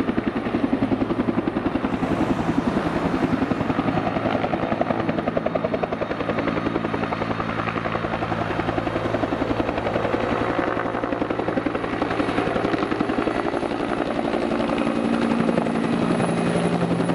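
Bell 212 helicopter hovering low during a snorkel water pickup, its two-bladed main rotor giving a rapid, steady chop over the steady hum of its engines.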